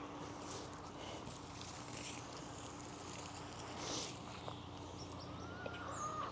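Faint, soft rustling of straw and soil as potatoes are picked out of a straw-mulched raised bed, over quiet outdoor background, with a thin bird-like call near the end.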